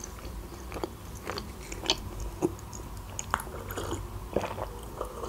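Close-miked chewing: a scatter of small sharp mouth clicks and bites, then a sip from a mug near the end.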